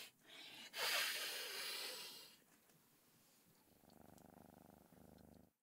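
A woman's voice: a long breathy, hissing exhale, then after a short pause a faint, low, fast-pulsing rattle in the throat, like a purr.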